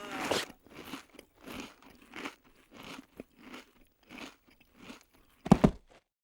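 Rhythmic crunching, about one crunch every two-thirds of a second, then a single heavy thump near the end.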